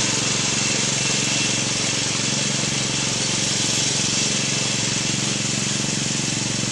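Riding lawn mower's small engine running steadily at a constant speed as it tows a trailer, with an even hiss over it.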